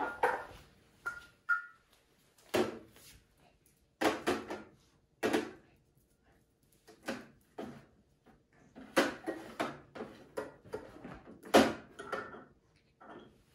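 Small candle jars and tins being set down and shifted about on top of a drawer cabinet: a string of light, separate knocks and clinks, some ringing briefly.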